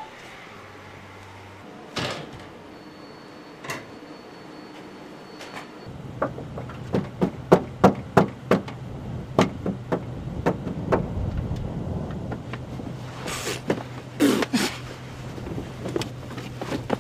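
Two sharp knocks, then from about six seconds in a quick run of clicks and knocks over a steady low hum, with a few louder knocks near the end.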